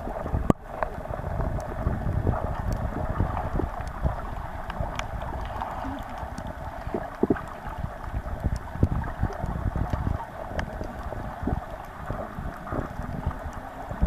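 Underwater noise picked up by a camera held under water: a muffled, steady hiss of moving water over low rumbling, with scattered small clicks and one sharp knock about half a second in.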